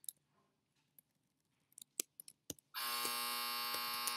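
A few light computer keyboard and mouse clicks, then a bit under three seconds in a loud, steady electric buzz starts and holds.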